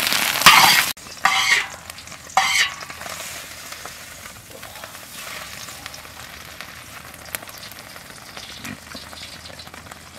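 Fried duck eggs sizzling in a large wok while a spatula scrapes them out, cut off abruptly about a second in. Two brief noisy bursts follow, then a much quieter outdoor background with a few faint clicks.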